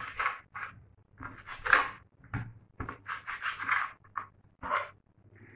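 A kitchen knife slicing raw tripe on a wooden cutting board: about ten short, irregular slicing and scraping strokes.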